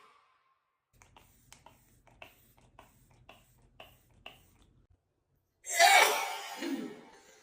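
A woman sneezing once, sudden and loud, a little past halfway through, after a few seconds of faint quick clicks.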